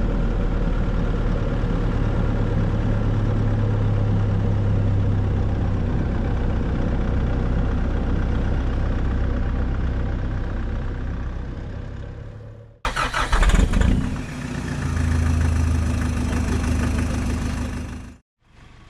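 Nissan Navara D40 ute's engine running in a steady drone. About 13 seconds in it cuts to a louder, rougher stretch of engine and driving noise, which stops abruptly near the end.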